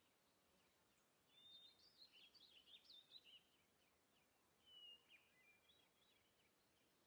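Faint birds chirping over a quiet outdoor hiss: a quick run of short calls about a second in, and another brief call about five seconds in.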